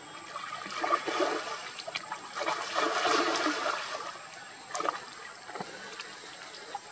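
Water splashing and sloshing in irregular surges as macaques wrestle and thrash in a muddy pool, loudest about three seconds in, with a few smaller splashes after.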